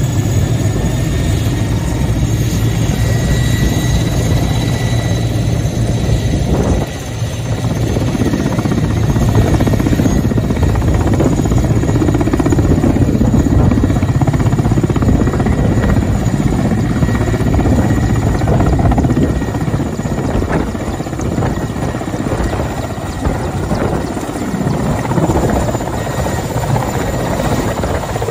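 A Mil Mi-8-type twin-turbine helicopter running at close range: steady rotor noise with a high turbine whine. It goes from running on the pad at flight power to lifting off into a low hover toward the end.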